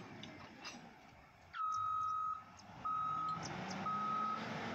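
Reversing alarm of a Sany STG170C motor grader backing up: a steady, single-pitched beep that starts about a second and a half in and repeats about once a second. The grader's engine runs faintly underneath.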